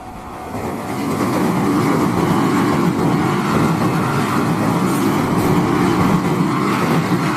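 A train passing close by over a level crossing on temporary track: a loud, steady rumble of wheels and running gear that builds over the first second or so and then holds.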